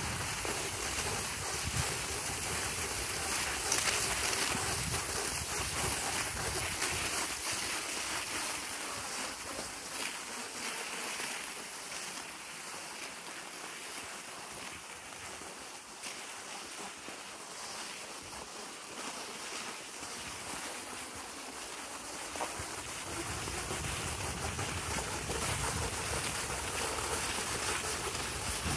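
Wind blowing on the microphone: a steady rushing noise with low buffeting that dies down in the middle and picks up again near the end.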